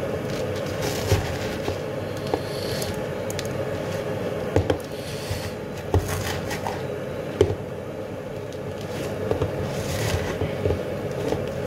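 Hands squishing and kneading sausage meat into dry, crumbly stuffing mix in a plastic jug, with rustling crumbs and a few knocks against the jug, over a steady background hum.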